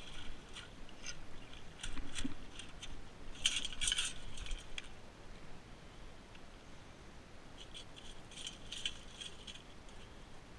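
Stones and pebbles clinking and rattling in three short flurries, from digging among beach rocks. The middle flurry is the loudest.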